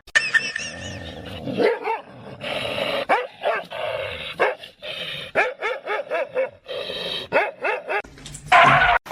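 A dog barking and yipping in quick, repeated short calls.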